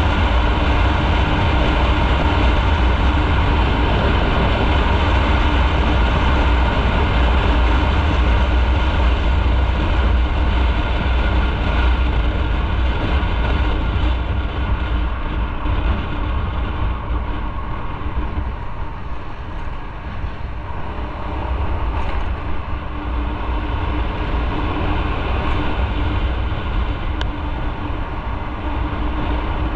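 Motorcycle riding at a steady pace: the engine running under heavy wind and road rumble on the microphone, easing off a little about two-thirds of the way through.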